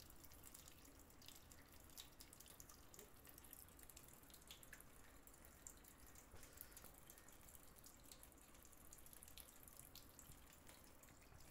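Faint trickle of water running from an RO water purifier's outlet tube into a stainless-steel sink, with scattered small drips and splashes. The line is left running open to purge air bubbles.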